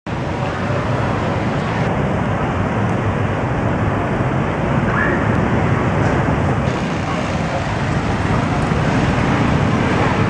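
Steady street traffic noise from passing motorbikes and cars, with people's voices mixed in.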